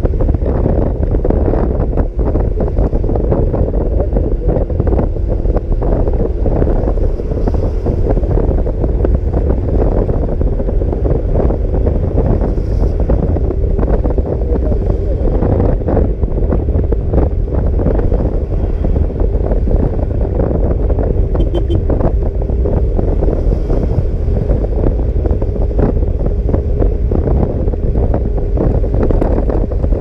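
Wind buffeting the microphone on a moving motor scooter, a loud steady rumble over the scooter's running engine.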